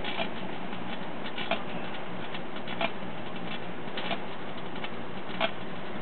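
Metal window screen arcing inside a running microwave oven: five sharp snapping cracks at a rhythmic spacing of about one and a quarter seconds, over steady background noise.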